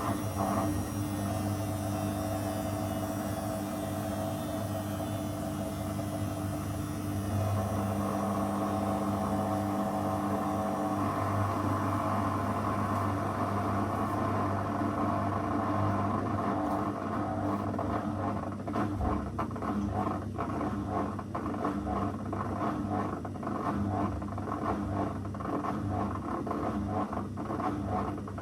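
Zanussi FL984CN washing machine running, its motor humming steadily. A high whine falls away over the first few seconds, and from about two-thirds of the way through, irregular knocks and rattles come from the turning drum.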